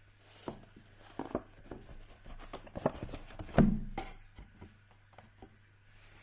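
Packaging and parts being handled: a run of clicks, rustles and knocks, the loudest a knock about three and a half seconds in, dying away near the end, over a low steady hum.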